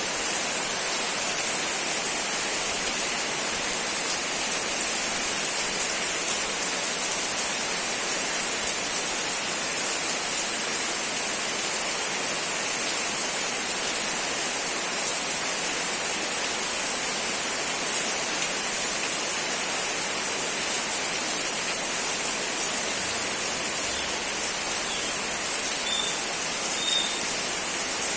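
Steady, even rain. Two short high peeps sound near the end.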